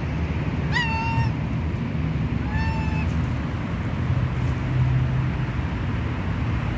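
A hungry street cat meowing twice, two short calls that rise and then hold, about a second in and again near three seconds. A steady low rumble runs underneath.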